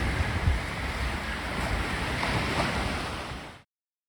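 Sea surf washing onto a beach, with wind buffeting the microphone; the sound cuts off suddenly about three and a half seconds in.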